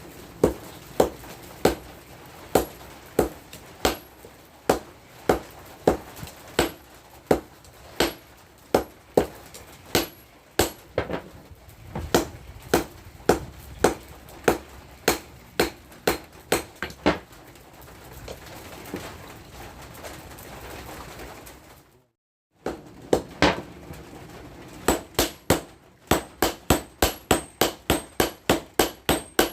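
Hand hammer striking steel in steady, evenly spaced blows, about three every two seconds, as a tractor rotary-tiller blade is hammered into a machete. The blows stop for several seconds, then resume faster, nearly three a second.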